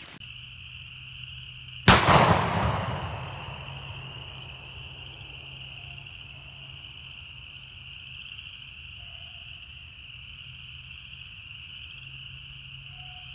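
A single shotgun shot about two seconds in, echoing and dying away over a second or two.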